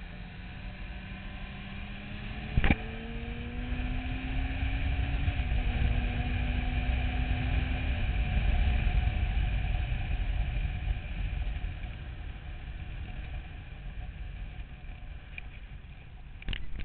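Motorcycle engine running under way, its pitch climbing steadily as it accelerates, then levelling off about five seconds in, over a heavy low rumble of wind on the microphone. A single sharp knock sounds about two and a half seconds in, and another comes right at the end.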